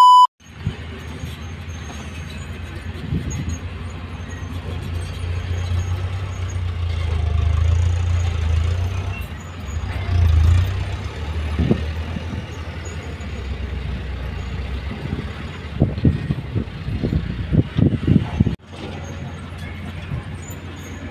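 A brief, loud test-tone beep at the very start, then the diesel engines of dump trucks and a hydraulic excavator running on an earthworks site. The engine rumble swells and eases through the middle, and a run of knocks and thuds comes near the end.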